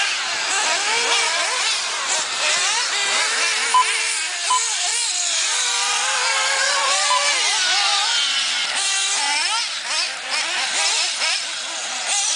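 Several 1/8-scale nitro RC buggy engines racing together, their high-pitched whines rising and falling as the cars accelerate and brake around the track. Two short beeps sound about four seconds in.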